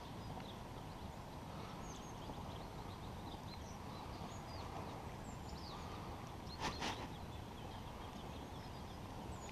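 Lakeside morning ambience: a steady low rumble with faint small-bird chirps scattered throughout, and two quick knocks close together about two-thirds of the way in.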